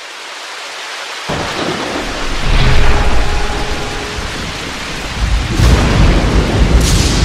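Rain-and-thunder sound effect: a hiss of rain swells in, and a deep rolling rumble of thunder joins about a second in and grows louder, with a few sharp cracks near the end.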